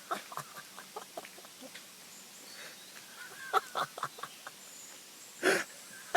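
A man retching and gagging in short, irregular throaty heaves, with one loud heave about five and a half seconds in.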